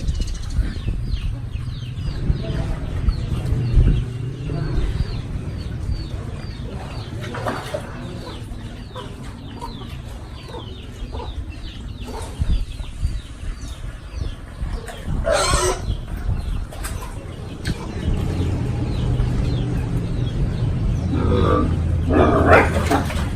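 Farmyard chickens: many small, quick, high chirps, then a loud short call about fifteen seconds in and two more louder calls near the end, over a steady low hum.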